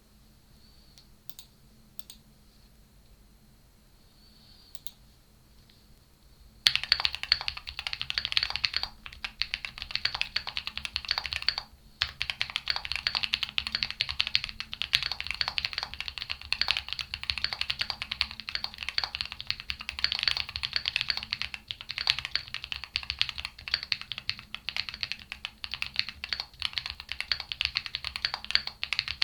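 Typing on a Qwertykeys QK75 mechanical keyboard with KNC Red Jacket switches and Cherry-profile PBT keycaps. The board has an aluminium gasket-mount case, a PC plate and foam mods, and the typing has a punchy sound. A few single key clicks come first, then fast continuous typing starts about seven seconds in, with a brief pause around twelve seconds.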